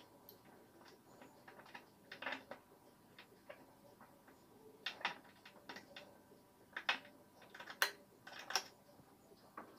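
Steel pliers clicking and scraping against a motorcycle seat bolt as they grip and turn it, in a series of sharp, irregular clicks a second or so apart.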